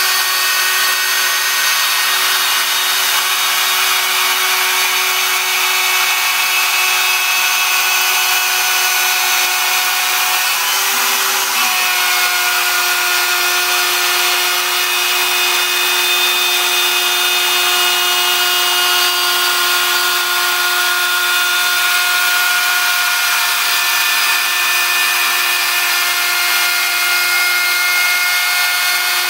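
CNC router spindle and bit cutting speaker holes in a studio monitor baffle: a steady, loud cutting noise over a high whine of several tones, with a brief change in pitch about eleven seconds in.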